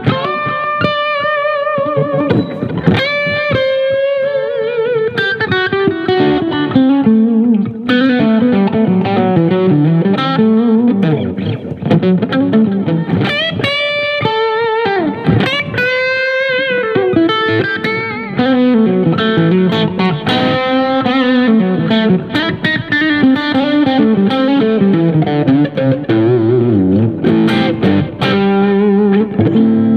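Fender Stratocaster electric guitar played through a Yamaha THR10 combo amp: a blues-rock lead of single notes, with string bends sliding up to held notes that shake with vibrato, and quick picked runs between them.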